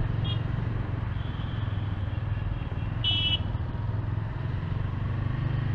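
TVS Apache RTR 200 4V's single-cylinder engine running steadily while the bike rides along, with one short high horn toot about three seconds in.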